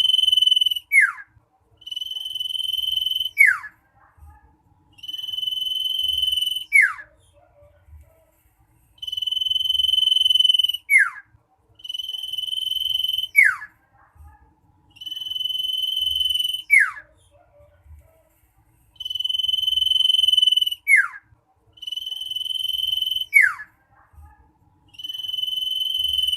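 Common iora (cipoh) calling loudly over and over: each phrase is a long, steady, high whistle ending in a quick downward slur. It repeats about nine times, every two to three seconds.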